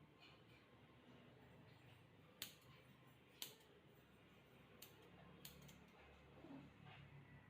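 Faint, sparse snips of grooming scissors cutting dog hair: a handful of sharp clicks spaced about a second apart.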